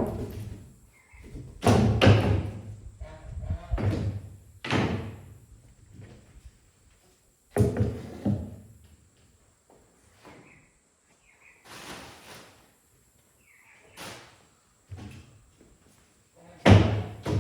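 Irregular knocks, thuds and slams, about a dozen, as the finished brooder's wooden panels and doors are handled and shut. The loudest comes near the end.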